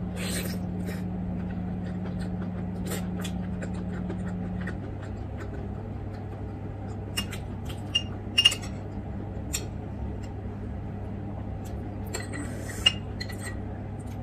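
A metal spoon clinking and scraping against ceramic dishes and a foil tray while eating, with a few sharp clinks about halfway through and one near the end. A steady low hum runs underneath.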